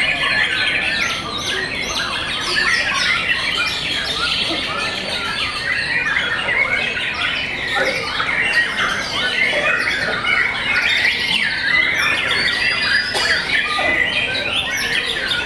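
White-rumped shamas (murai batu) singing: a dense, unbroken tangle of rapid whistled phrases and trills from several caged birds at once, overlapping without pause.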